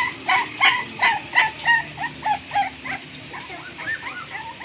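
Puppy yelping in a rapid, even series of short high cries, about four a second, turning into softer, irregular whimpers after about two and a half seconds.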